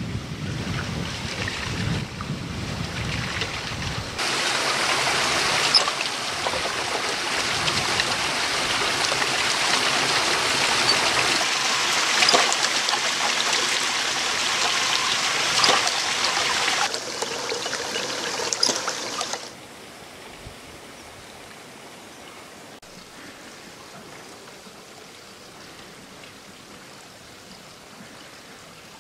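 Water pouring steadily from the metal spout of a log water trough, a dense splashing rush. It grows louder about four seconds in and cuts off abruptly about two-thirds of the way through, leaving only a faint, steady outdoor background.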